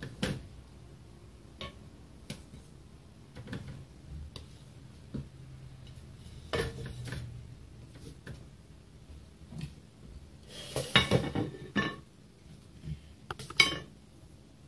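Metal turner and non-stick frying pan knocking and scraping on a gas stove while a pizza base is turned and handled: scattered light taps and clicks, with a longer stretch of clattering about ten to twelve seconds in and a sharp knock near the end.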